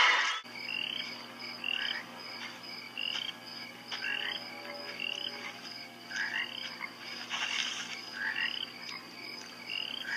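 A loud scream cuts off in the first half second, leaving a frog chorus: short rising peeps repeated about once a second over a steady high-pitched drone.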